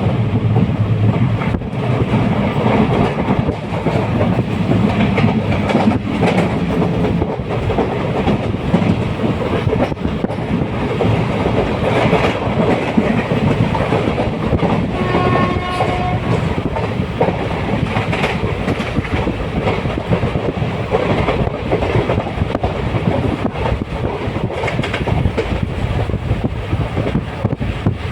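A train running on rails: a steady loud rumble with the clickety-clack of wheels over rail joints. About halfway through there is a short pitched sound.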